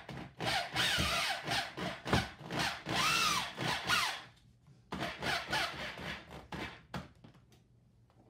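Corded electric drill running in two bursts into the wooden door frame, its pitch rising and falling as the speed changes. The first burst lasts about four seconds; the second is shorter and starts about five seconds in. This is the step of fixing the gate's mounting hardware to the frame.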